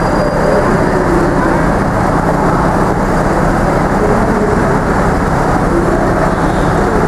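Truck-mounted telescopic boom manlift running, its truck engine driving the hydraulics as the boom telescopes out. A steady, even mechanical drone with a low hum.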